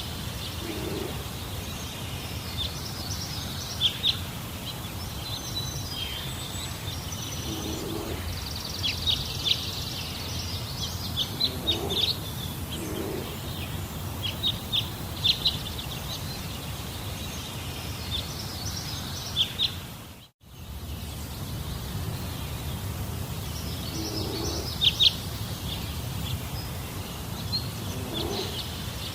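Birds chirping, with many short, high calls scattered through, over a steady low background rumble. A few fainter, lower calls come and go. The sound drops out briefly about two-thirds of the way through.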